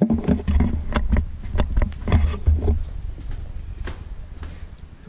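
Quick footsteps across a bare floor with knocks and low rumbling from the handheld camera, about a dozen irregular knocks in the first three seconds, then fewer and fainter.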